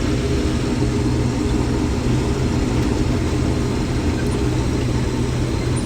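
Combine harvester running steadily while harvesting corn: an even, unchanging engine and machinery drone.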